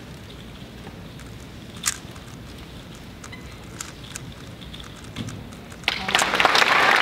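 Faint clicking of a 3x3 speedcube being turned rapidly during a solve, then about six seconds in, an audience starts applauding loudly as the solve ends.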